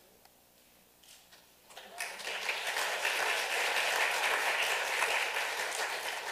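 Audience applauding, starting about two seconds in and fading near the end.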